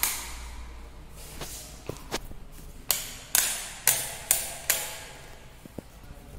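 Footsteps on a hard tiled floor, echoing in an empty room: a few light steps, then five sharp steps about half a second apart.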